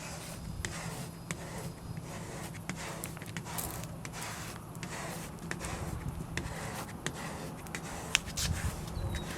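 A squeegee rubbing and scraping over the pre-mask and vinyl decal on a window in short, repeated strokes, with scattered light clicks and a sharper one about eight seconds in, over a steady low hum.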